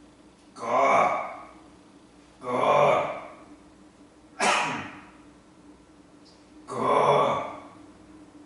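A person giving four loud, breathy, coughing gasps, about two seconds apart.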